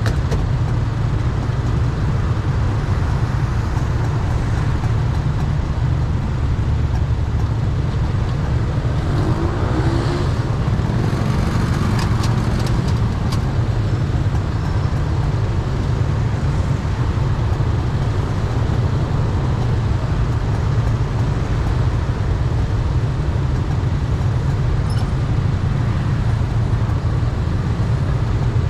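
Steady low rumble of idling motorbike engines and street traffic at a stop. About nine seconds in, one engine's note rises briefly as it revs up, followed by a few faint clicks.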